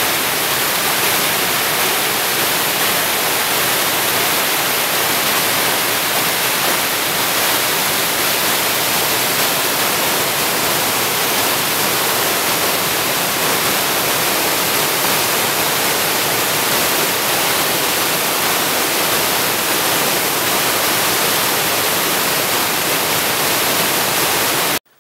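Rushing water of a forest stream cascading over rocks and a small waterfall, a loud, even rush with no change, cutting off suddenly just before the end.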